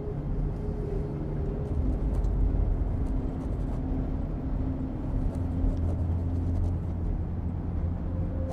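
Steady low engine and road rumble heard from inside a moving car's cabin.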